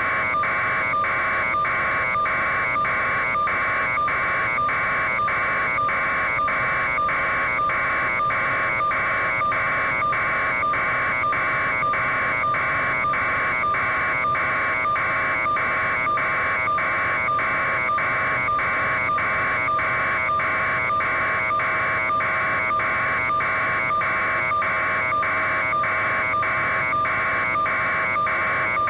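Helicopter cabin noise: a steady, evenly pulsing buzz with a constant whine underneath.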